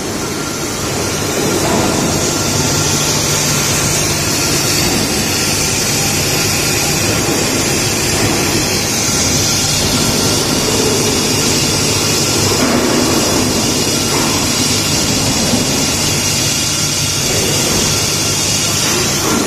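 An induction heat-treatment machine for long shafts running steadily. The sound is a continuous hiss over a low hum, with a thin high tone held throughout.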